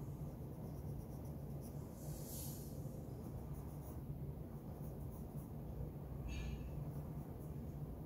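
Graphite pencil scratching on drawing paper in faint strokes, the clearest about two seconds in, over a steady low hum.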